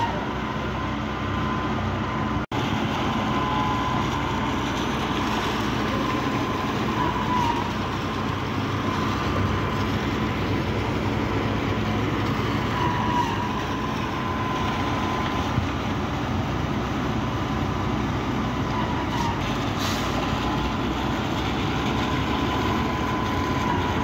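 Concrete pump truck running steadily while pumping concrete out through its boom and end hose, a continuous heavy machine noise with a faint steady high whine. The sound drops out briefly about two and a half seconds in.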